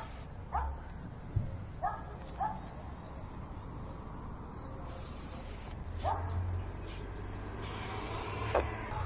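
Aerosol spray-paint can hissing in two bursts, about five and eight seconds in, as paint goes onto the wall. A dog gives several short barks throughout.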